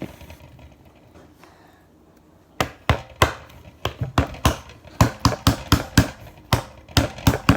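Slime being squeezed and pressed in the hands, making sharp, irregular clicks and pops several times a second, starting about two and a half seconds in.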